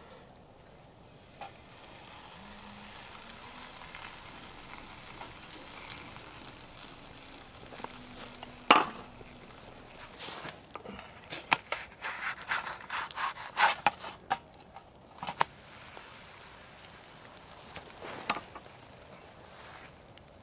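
Pancake batter frying in hot oil in a frying pan over a small wood-burning stove: a steady sizzle, broken by sharp clicks and scrapes, the loudest about nine seconds in and a dense run of them from about eleven to fifteen seconds.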